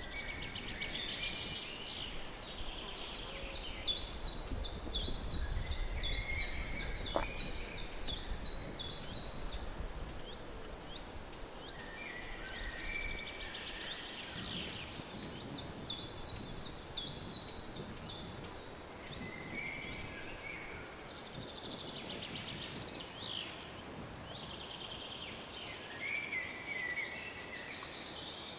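Several birds singing at once. One repeats quick, sharp high notes, about three a second, in two long runs: one early and one about halfway through. Softer chirps fill the gaps, over a low wind rumble in the first third.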